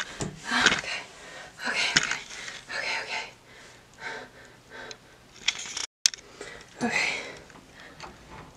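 A person panting hard in quick, noisy gasps, panicked while trying to escape. A sharp click comes about two seconds in, and the sound drops out for an instant about six seconds in.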